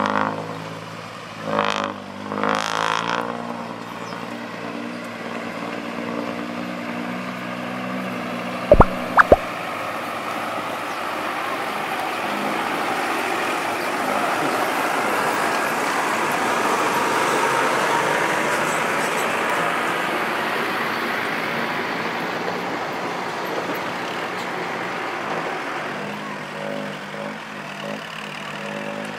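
Diesel engines of a Kubota tractor and dump trucks running while the tractor grades sticky clay with its front blade. Two short hisses come in the first few seconds, and two sharp knocks about nine seconds in are the loudest sounds. Through the middle the engine note gives way to a steady rushing noise, and the engine hum returns near the end.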